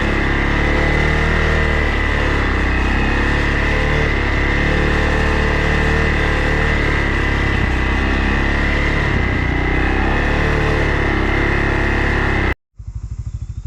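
A vehicle engine running steadily under way. Near the end it cuts off abruptly and is replaced by an engine idling with a low, even putter.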